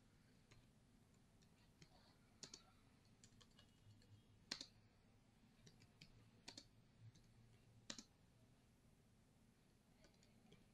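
Computer keyboard being typed on: faint, irregular key clicks, a few strokes louder than the rest, as a short phrase is typed.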